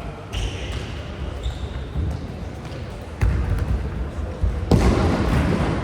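A football being kicked during a match: a few dull thuds, the sharpest about three seconds in, over a steady low rumble, with a burst of rushing noise lasting about a second near the end.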